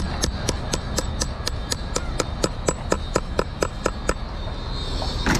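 A hammer tapping in a quick, even run of sharp strikes, about four a second, stopping about four seconds in. A steady low rumble runs underneath, and a single louder noise comes near the end.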